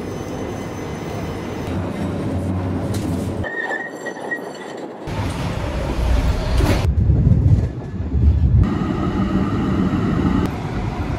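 Trams running on their rails in a run of short clips, the sound changing abruptly every second or two. A high steady squeal from the wheels comes and goes between the rumble.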